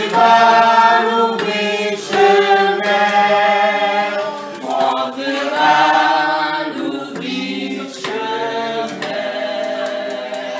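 A small group of men and women singing a song together unaccompanied, in phrases of long held notes.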